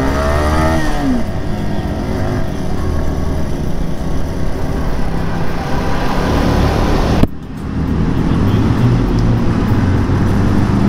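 Sport motorcycle riding at speed, its engine running under a steady rush of wind and road noise; the engine pitch falls in the first second, as when easing off the throttle. The level drops suddenly for a moment about seven seconds in.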